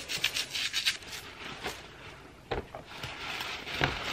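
A small brush scrubbing a wet sterling silver charm bracelet in quick, rhythmic strokes for about the first second. Near the end come two soft knocks and paper towel rustling as the bracelet is wiped.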